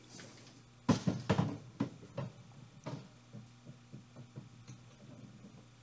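A large drum knocking and bumping on a stage floor as it rolls loose: a few sharp knocks about a second in, then lighter taps thinning out, over a steady low hum.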